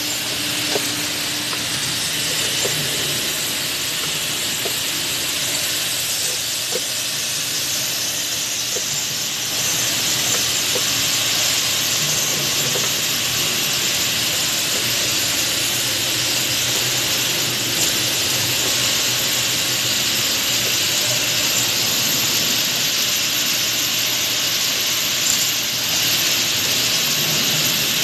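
Steady hissing drone of injection-moulding machines running on a factory floor, stepping up in level about ten seconds in, with a few faint ticks.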